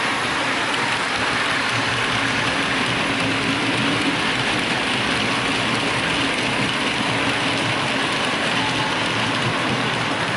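Model train running on layout track: the wheels of a locomotive and a rake of hopper wagons rattle and click steadily over the rails and joints.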